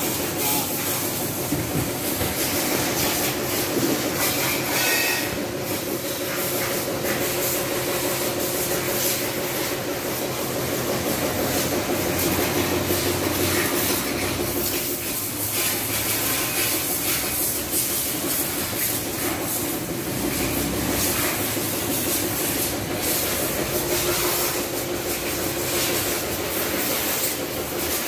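High-pressure washer running steadily: the pump motor's constant hum under the hiss of the water jet spraying onto a motorcycle.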